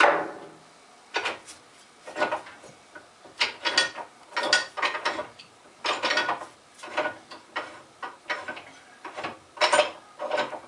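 Cover plate being fitted onto a woodworking vise: a sharp knock at the start, then a dozen or so irregular scrapes and knocks as it is worked into place.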